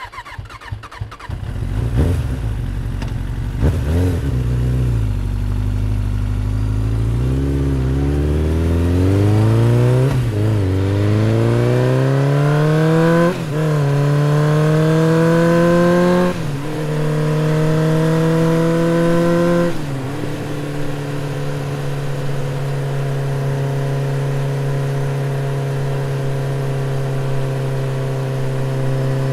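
Motorcycle engine starting up and accelerating through the gears. Its note climbs in pitch, then drops back sharply at each of about five gear changes. From about two-thirds of the way in it holds a steady cruising note.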